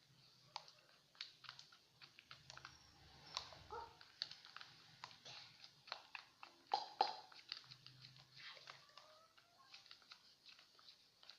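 Sticky slime mixture of PVA glue and liquid soap being stirred in a container: a faint, irregular run of soft wet clicks and squelches, with a louder pop about seven seconds in.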